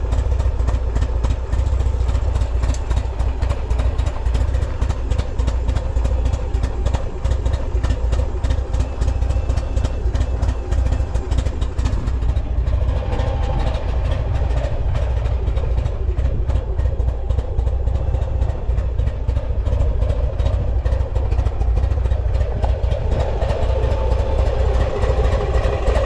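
Buell XB9S Lightning's air-cooled V-twin engine idling with an even, rhythmic beat, its note filling out a little about halfway through and again near the end. The engine is running without abnormal noises.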